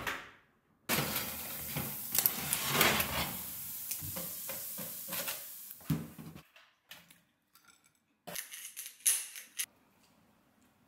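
Clattering and scraping of a metal baking tray of roasted octopus chunks being turned with a wooden spoon, dense for the first six seconds. After that come a few scattered clicks and a short burst of clatter about eight to nine and a half seconds in.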